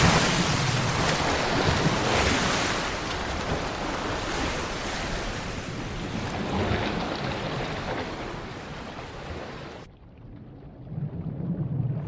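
Heavy water splashing and churning as transient orcas ram a Steller sea lion at the surface, loudest at the start and slowly easing off. About ten seconds in the sound turns suddenly muffled and dull, as heard underwater, with a low rumble rising near the end.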